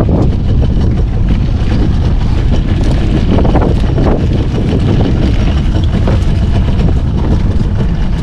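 Loud, steady rumble of a boat under way, with wind buffeting the microphone.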